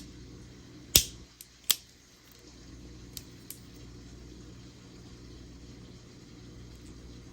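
A few sharp clicks and taps from a small plastic charger and its packaging being handled during an unboxing. The loudest comes about a second in, two more follow quickly, and two faint ticks come a couple of seconds later, all over a steady low room hum.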